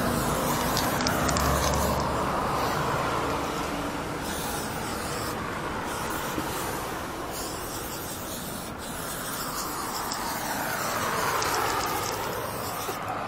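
Aerosol spray can hissing in long bursts with short breaks as black paint is sprayed onto a corrugated metal wall.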